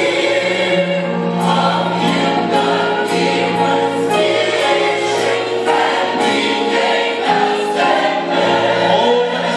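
Gospel church choir singing in full voice, holding long chords.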